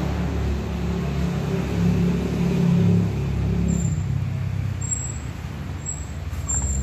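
A motor vehicle engine running, growing louder towards the middle and then fading away.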